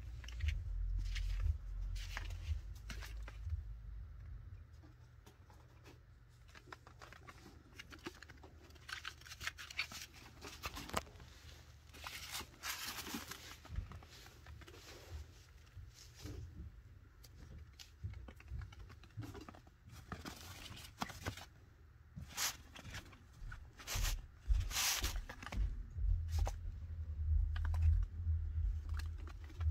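Chinchilla moving about on a fabric floor among wooden chew toys: scattered small clicks, taps, scratches and rustles. A low rumble comes in the first few seconds and again near the end.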